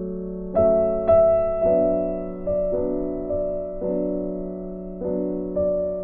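Background piano music: a gentle melody of single notes and chords struck about every half second, each dying away.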